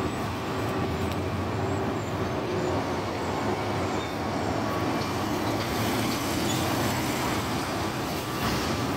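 Heil Half Pack Odyssey front-loader garbage truck running at a distance: a steady diesel engine hum with held tones over it. A car passes on the street near the end.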